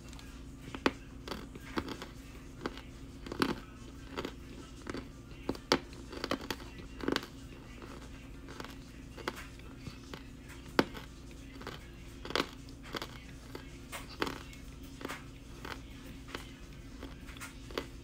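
Pressed cornstarch brick being bitten and chewed: sharp, irregular crunches, roughly one or two a second, over a steady low hum.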